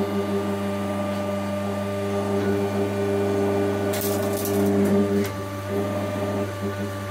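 Electric motor and hydraulic pump of a Coal Iron Works 12-ton forging press running with a steady hum and whine. About four seconds in, as the control lever is worked, a hiss joins for about a second.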